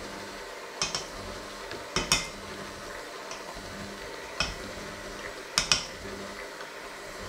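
Metal hand-mixer beaters knocking against a stainless steel bowl of flour, shaking the flour through into a jug below: seven sharp metallic knocks, mostly in quick pairs.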